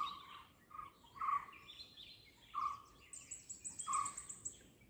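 Birds calling in the trees: a short call repeats about every second or so. In the second half a fast, high-pitched trill of even ticks joins in for about a second and a half.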